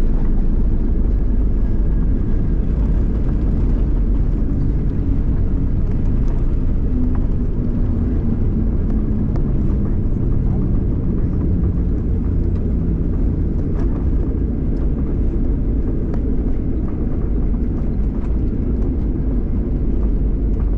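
Steady low rumble of a Boeing 737 in flight or on the landing run, heard from inside the passenger cabin: engine and airflow noise with no distinct bangs or changes.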